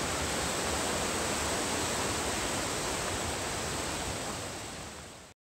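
Rushing mountain creek: a steady wash of white water over rocks, fading out near the end.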